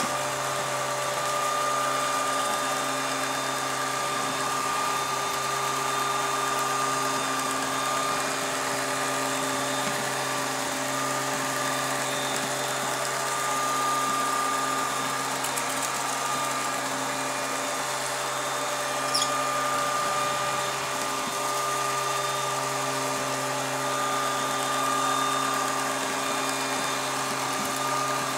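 Moneual robot vacuum cleaner running steadily, its suction fan hissing with a steady high whine from its motors. One brief click about two-thirds of the way through.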